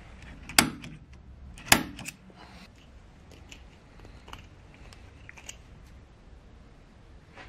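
A center punch striking an aluminium bushing held in a lathe chuck, marking the positions for two through-holes: two sharp metallic snaps with a short ring, about a second apart, followed by a few faint handling clicks.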